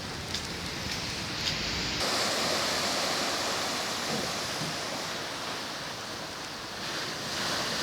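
Steady rush of flowing floodwater in a flooded street. A few faint knocks come in the first two seconds; about two seconds in, the rushing abruptly becomes fuller and a little louder.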